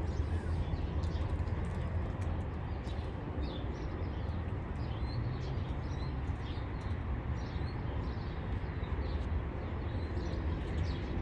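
Small birds chirping over and over in short high notes, over a steady low rumble.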